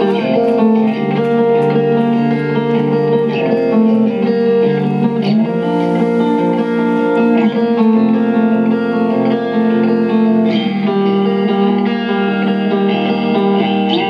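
Rock band playing live, led by electric guitars holding sustained chords over bass, the chords changing every second or two.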